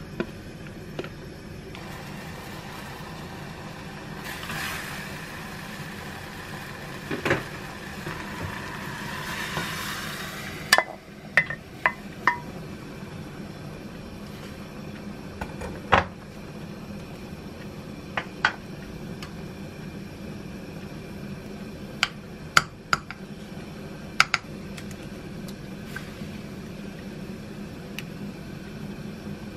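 Kitchen cooking sounds around an earthenware pot on a gas stove: a hiss lasting several seconds, starting about two seconds in, then a string of sharp clinks and knocks of utensils and dishes, over a steady low hum.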